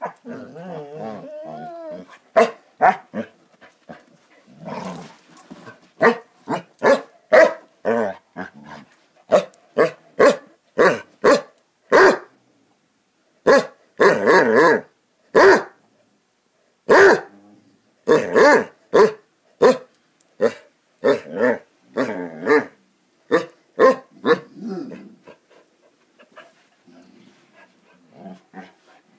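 Basset hounds playing: a wavering growl at first, then a long run of short, loud barks, dozens of them, which die away near the end.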